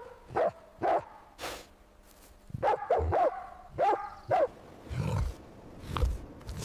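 Dog barking: two short barks, then a quick run of higher yapping barks in the middle. Near the end there are two short, low sounds.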